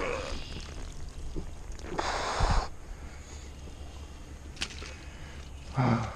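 A landing net with a fish in it is lifted out of the river. About two seconds in there is a short rush of splashing water draining through the mesh, with a thud. After that come scattered knocks and rustles as the net is handled and set down on the bank.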